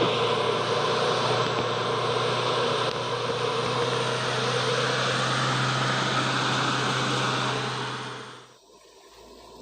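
Mitsubishi Colt Diesel truck's 100 PS diesel engine running under load with a steady drone, on a hill climb the title says it lacks the power for. The sound dies away sharply about eight and a half seconds in.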